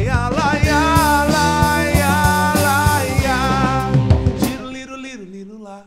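Live rock band with drum kit, electric guitar, bass and keyboard playing under a singer holding long wavering notes. About four and a half seconds in, the band thins out and the sound fades to a quiet held note.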